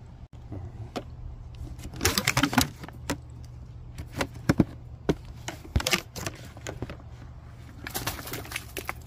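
Kitchen scraps and eggshells being shaken and knocked out of a plastic pail onto a garden bed: irregular clattering knocks and rattles in three bursts, the loudest about two seconds in.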